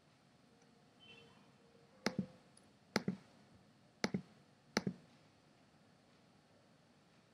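Computer mouse button clicked four times, about a second apart, each click a quick press-and-release double tick.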